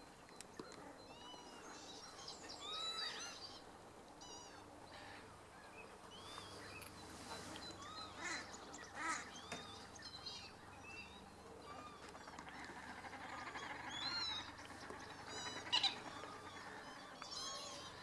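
A large mixed flock of gulls and lapwings calling in flight: many short, overlapping arched calls, busiest toward the end, with the loudest calls a couple of seconds before the end.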